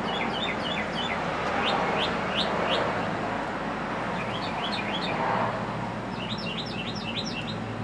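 Songbirds chirping, in quick runs of short, high, down-slurred chirps that come in several clusters, over a steady background hiss.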